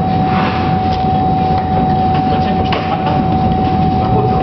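Steady loud machinery noise: a low rumble with a constant high whine, broken by a couple of light knocks about a second in and near three seconds in.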